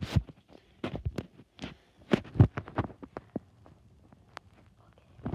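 Handling noise from a phone being moved about close to the body: irregular knocks, thumps and rubs on the microphone, loudest about two and a half seconds in, then dying away for the last second and a half.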